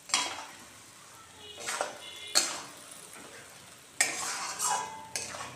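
Spatula scraping and clanking against a large metal kadai as spiced, marinated meat is stirred and fried (the kosha stage), about five strokes over a low sizzle.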